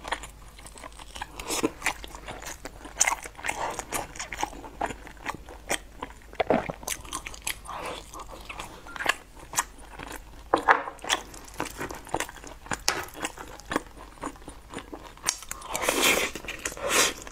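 Close-up eating sounds: biting and wet chewing of a soft, rice-filled food dipped in sauce, with many small crunchy clicks from the mouth. They grow louder and denser near the end, as a spoonful of the rice filling is eaten.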